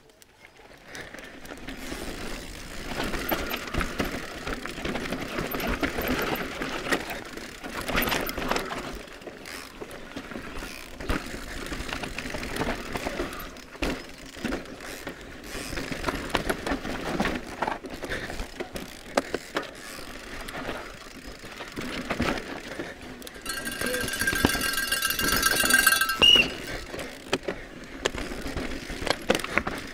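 Electric mountain bike being ridden fast down a forest trail: tyres running over dirt and roots, with constant rattling and sharp knocks from the bike over the bumps. About three-quarters of the way in, a high whine holding several tones lasts about three seconds.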